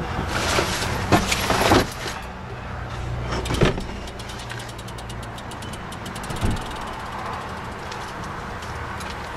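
A car on the move, heard from inside: steady engine hum and road noise, with a few knocks. The first two seconds are louder.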